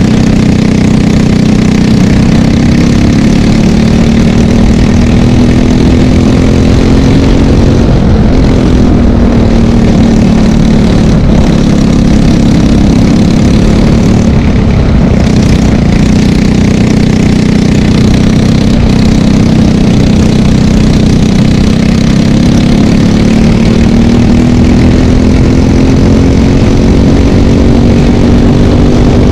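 Briggs & Stratton LO206 single-cylinder four-stroke kart engine running at racing speed, heard from on board the kart. Its pitch climbs and falls several times, dipping at about eight seconds and rising again near the end.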